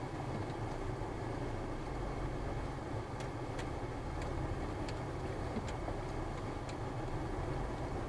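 A car's engine and tyre noise heard from inside the cabin as it moves off and turns, a steady low rumble. From about three seconds in come faint, regular ticks, roughly one every two-thirds of a second.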